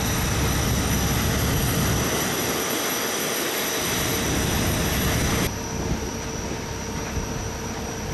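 Steady airliner noise from an Airbus A350-900: an even rushing hiss with a thin, high steady whine. It drops suddenly to a lower level about five and a half seconds in.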